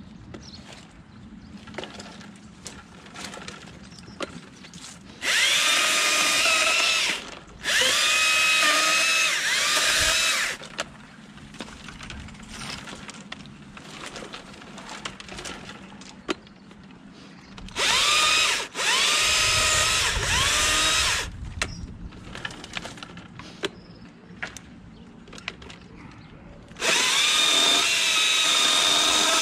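Stihl top-handle chainsaw revving to full throttle in several bursts of a few seconds each as it cuts apple tree leaders, dropping back to idle in between, with scattered clicks from branches.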